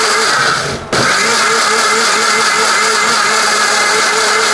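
Ajnur 1200-watt mixer grinder running with a full stainless-steel jar, a loud steady motor whine as it grinds the load to a paste. It slows and cuts out briefly just before a second in, then comes straight back up to speed.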